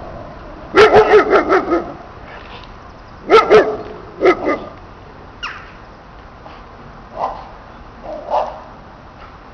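German Shepherd-type dog barking in bursts while held by its harness: a quick run of about six barks, then two pairs, then a few scattered, fainter barks.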